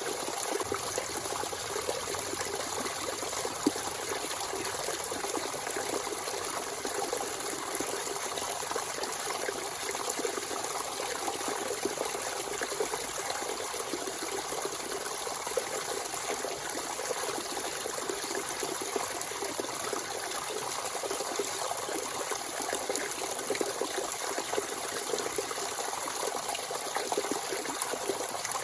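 Natural spring water running and trickling steadily, a constant splashing flow with fine flickering detail.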